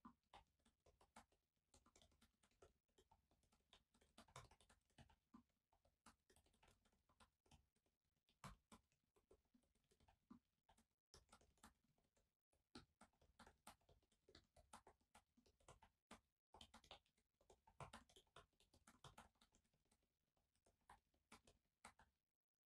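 Faint, irregular clicking of typing on a laptop keyboard, several keystrokes a second in uneven runs.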